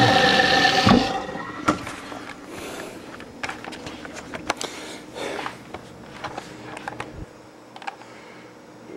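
Newly installed InSinkErator garbage disposal running smoothly on a test run with tap water pouring into it, then switched off about a second in and spinning down. After that come scattered clicks and knocks of handling.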